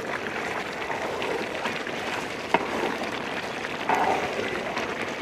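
Chicken masala in a large metal pot bubbling and sizzling steadily in the water the chicken has let out, just uncovered. A metal spatula stirs through it, with a sharp click of metal on the pot about two and a half seconds in.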